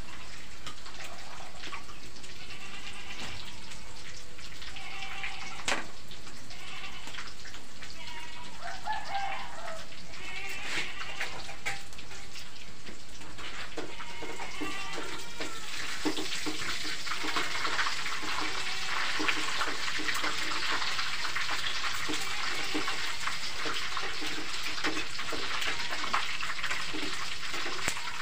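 Food sizzling in hot oil in a wok, a steady crackling hiss that grows much louder about halfway through.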